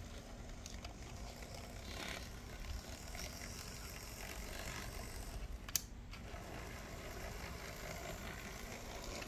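Märklin Z-scale V36 diesel model locomotive running along the track: a steady whir of its small motor and gears, with one sharp click about six seconds in.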